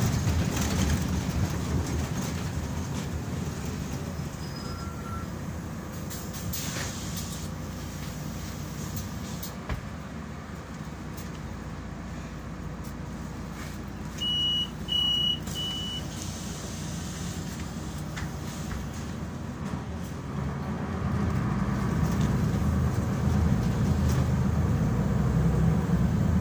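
Cabin noise inside a Solaris Urbino 12 III city bus under way: steady engine and road noise, which grows louder about three-quarters of the way through. About halfway through, three short high beeps sound.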